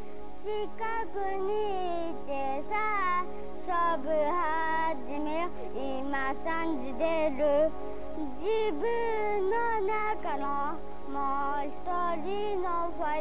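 Music: a high voice singing a melody over a steady low drone.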